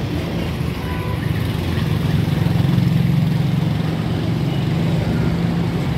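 Low, steady drone of a motor vehicle engine running, growing louder about two seconds in and easing off again, over a light street hiss.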